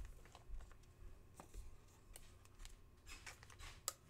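Faint handling of trading cards and a foil card-pack wrapper: light scattered clicks and rustles, busier near the end with one sharp click.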